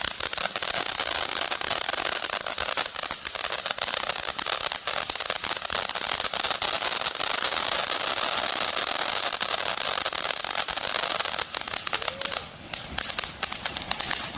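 Consumer firework crackling: a dense, rapid spray of sharp crackles. Near the end it thins out into a few scattered pops.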